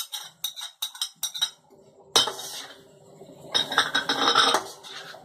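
A spatula clicks against a glass bowl and the rim of a wok, scraping chopped green onion into the pan in a quick run of taps. From about two seconds in, the spatula stirs the chicken and vegetables around the nonstick wok with a scraping rustle.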